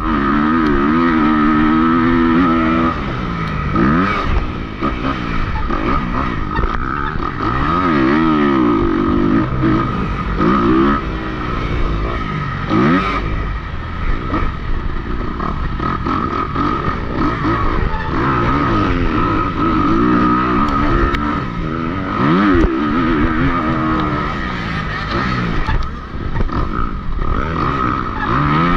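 Dirt bike engine revving hard and dropping off again and again as the rider accelerates, shifts and slows through the motocross track, heard up close from the bike's onboard camera.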